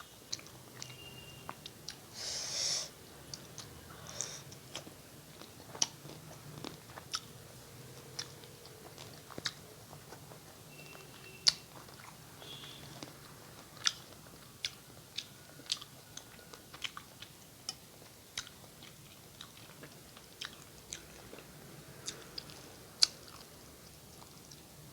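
Close-miked chewing of a rice and fish curry meal, with many sharp wet mouth clicks and smacks throughout. A brief breathy rush comes about two seconds in.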